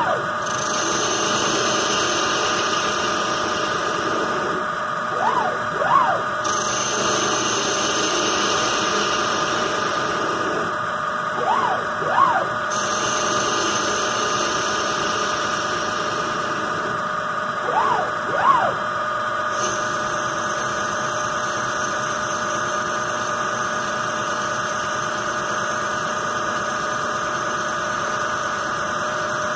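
Homemade CNC lathe turning an aluminium ball. The spindle runs steadily, and the tool takes repeated cutting passes that each add a hiss of cutting noise. About every six seconds the cutting stops and the axis drive motors whine up and down twice as the tool makes quick repositioning moves between passes.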